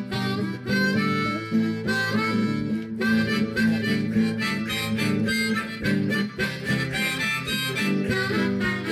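Instrumental break in a worship song: an acoustic guitar strummed in a steady rhythm, with a held melody line played over it.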